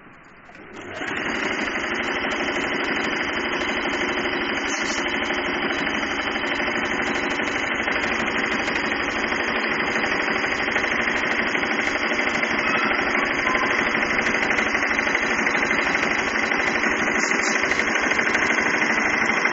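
Singer 2250 Tradition sewing machine stitching a round decorative stitch at a shortened stitch length: motor running and needle mechanism clattering in a fast, even rhythm. It starts about a second in and grows slightly louder toward the end.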